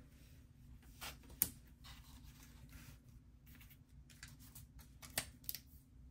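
Faint paper handling: a sticker pressed onto a paper planner page and hands smoothing the open spread flat, with a few light taps and clicks, the sharpest about a second and a half in and another about five seconds in.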